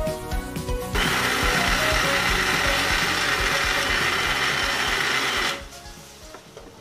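Electric mixer grinder with a steel jar running, grinding a chicken mixture: a steady whirring noise that starts about a second in and stops about five and a half seconds in, fading out. Music plays in the first second.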